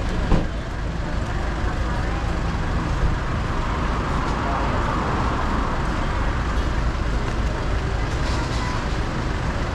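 Steady wind rush on the microphone over the running engine of a motorcycle under way, with one sharp knock about a third of a second in.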